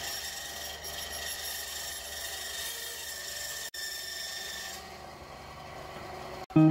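Bandsaw cutting through a block of epoxy resin cast around spruce cones: a steady rasp of the blade in the material over a thin, steady high whine. The high part of the sound falls away about five seconds in.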